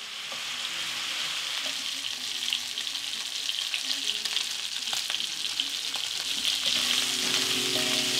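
Beef cubes searing in hot oil in a heavy-bottomed pot, a steady sizzle with many small crackles and spits throughout.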